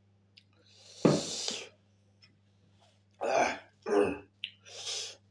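A person coughing once sharply about a second in, then clearing their throat in three shorter bursts.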